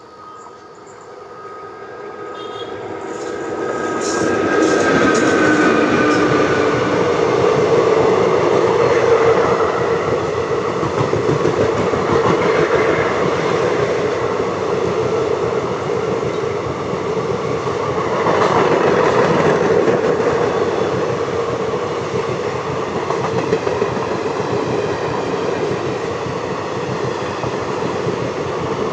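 Indian Railways electric-hauled express train with ICF coaches approaching and running past close by. The sound swells over the first four seconds into a steady rumble of wheels clattering over the rail joints, and a high whine drops in pitch about five seconds in as the locomotive goes by.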